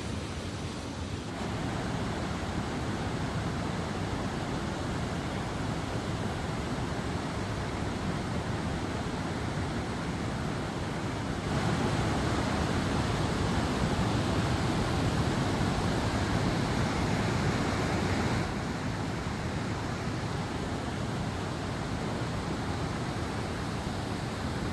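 Waterfall: a steady rush of falling water with no distinct strokes. Its level jumps up a little after a second in, is louder through a stretch in the middle, then drops back abruptly.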